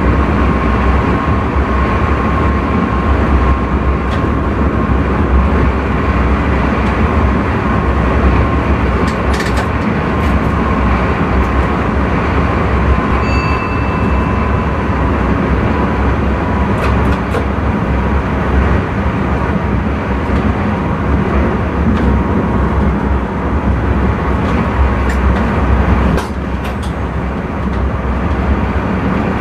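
Intercity train running at speed, heard from the driver's cab: a steady rumble of wheels on rail with a few sharp clicks and a brief high beep about 13 seconds in. The running noise drops a little about 26 seconds in.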